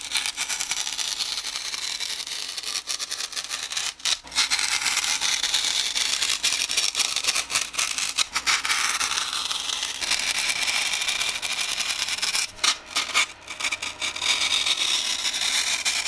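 Knife blade slicing and shaving through a block of floral foam: a continuous fine scratchy crunching made of many small strokes, with a brief break about four seconds in and a few short breaks around thirteen seconds.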